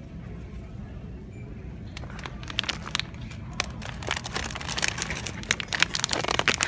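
Plastic bags of M&M's crinkling as they are handled on a store shelf: a dense run of crackles starts about two seconds in and grows louder near the end, over a low steady hum.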